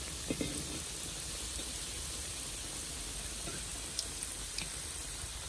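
Tofu frying in hot oil: a steady, dense sizzle that starts abruptly, with a few faint pops about four seconds in.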